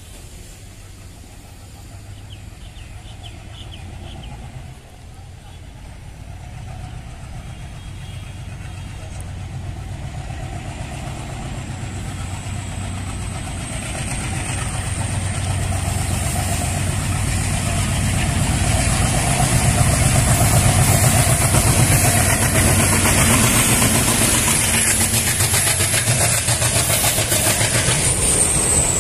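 WDP-3A diesel locomotive's ALCO 251 V16 engine chugging at full power as it pulls away, growing steadily louder as it approaches. A high turbocharger whine rises with it and drops in pitch as the locomotive passes near the end.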